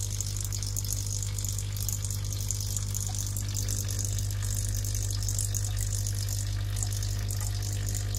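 A coffee machine's electric hot-water pump running, with a steady low hum, while water hisses and splashes as it is pumped into a container.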